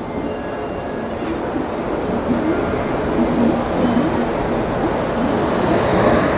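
Passenger train pulling into a station platform: a steady rumble of rolling coaches that grows a little louder, with a brief hiss near the end.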